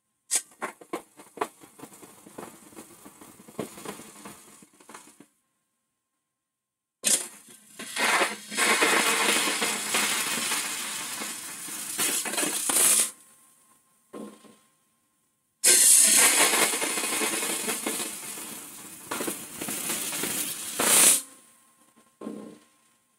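Hollowing tool cutting inside a spinning holm oak hollow form on a wood lathe. A run of short clicking, tapping cuts comes first, then two long rough scraping passes of several seconds each, with a faint steady tone between them.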